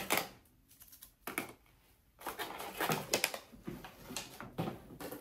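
MRE tortilla pouch, a stiff foil-laminate packet, crinkling and crackling in the hands as the tortillas are pulled out and the wrapper is handled. A few scattered crackles at first, then a denser run of rustling from about two seconds in.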